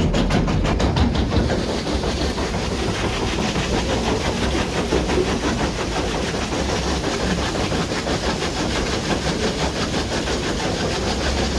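Old wooden water-powered grain mill running: a fast, even wooden clatter of several knocks a second over a steady rushing noise from the water wheel and turning machinery.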